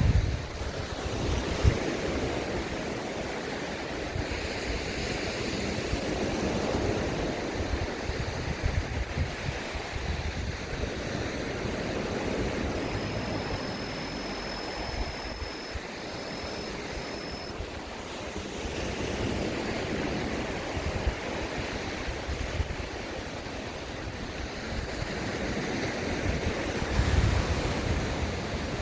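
Sea waves breaking and washing up on a sandy beach, the surf swelling and easing every several seconds, with wind buffeting the microphone. A faint high steady tone sounds briefly about halfway through.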